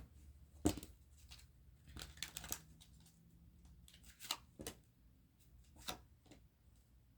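Faint handling of tarot cards: short separate rustles and taps as cards are drawn and laid down, with a quick cluster of them about two seconds in.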